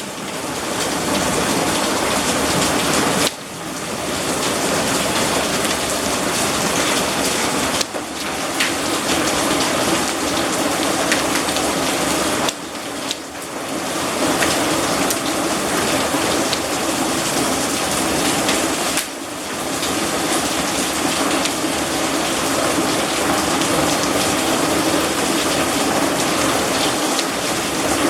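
Heavy storm rain mixed with hail pelting down: a dense, steady downpour hiss with many sharp ticks of hailstones striking. The level dips briefly a few times.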